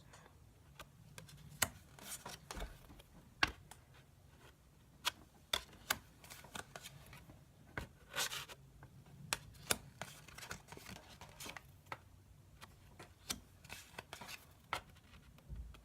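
Pokémon trading cards being handled: scattered small clicks and taps as cards are flicked and set down, with a brief papery rustle a little past the middle.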